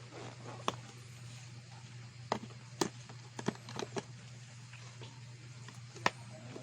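Irregular light clicks and taps of an action camera's box, plastic parts and accessories being handled, with a sharper tap about six seconds in.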